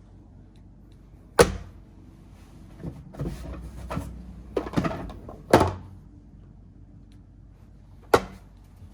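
Plastic disc golf discs being handled and set down on a hard surface: three sharp knocks, with a run of smaller clacks and rustling between the second and third.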